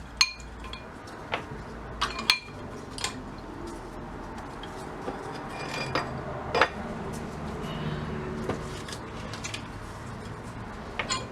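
Loose metal parts of a gumball machine clinking and clattering as they are set into a container, a sharp clink every second or so with short ringing. A low steady hum comes in about halfway.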